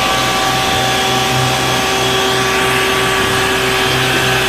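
Isuzu water tanker truck's pump running while its roof water cannon sprays a jet: a steady loud hiss with a constant whine and a low throb pulsing about three times a second.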